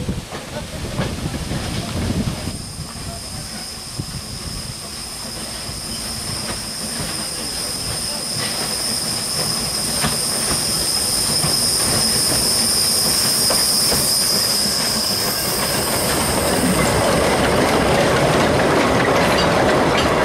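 Narrow-gauge train wheels squealing on a curve in a long, steady, high-pitched squeal. In the last few seconds this gives way to the louder rumble and clatter of a train passing close on the track.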